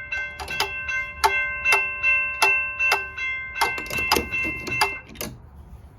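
Railroad crossing bell ringing loudly, its striker hitting about two to three times a second, each stroke leaving a sustained ring. It stops about five seconds in.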